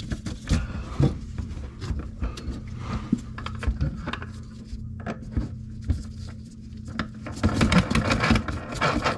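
Scattered light knocks and rubbing from hands handling plastic drain pipe and fittings, over a steady low hum. The knocks come thicker about three-quarters of the way through.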